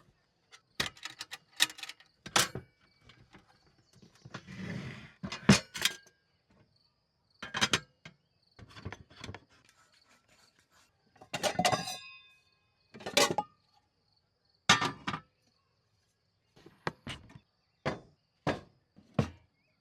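Scattered knocks and clunks of objects being handled, about a dozen, one of them near the middle ringing briefly like struck metal. A faint steady insect trill runs underneath.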